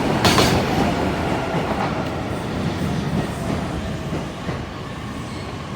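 Freight train wagons' wheels running over rail joints at speed: a sharp clack about a third of a second in, then a steady rolling rumble that slowly fades as the train passes.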